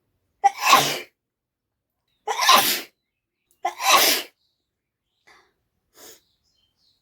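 A person sneezing three times in a row, the sneezes about a second and a half apart, each one sudden and loud. Two faint short sounds follow near the end.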